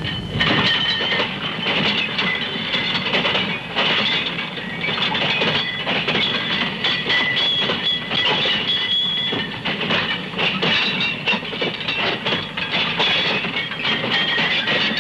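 Ore train rolling close by: steel wheels and wagons clattering and rattling over the rails, with a steady high wheel squeal running through it.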